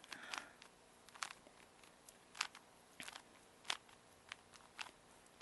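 A Rubik's Cube being twisted: about eight faint, sharp plastic clicks at irregular gaps of half a second to a second as the layers are turned.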